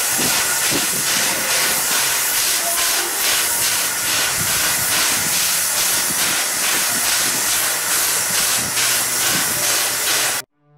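Steam tank locomotive standing still, letting off a loud steady hiss of steam with a faint pulsing beat about three times a second; the sound cuts off suddenly near the end.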